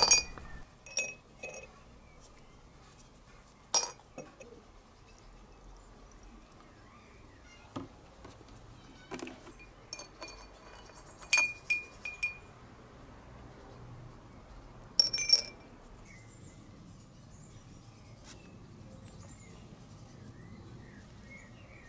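Small steel nuts and bolts clinking against glass jars as they are dipped in and lifted out of the liquids, in scattered separate clinks; several set the glass ringing briefly with a bright tone. A quick cluster of the loudest clinks comes about two-thirds of the way through.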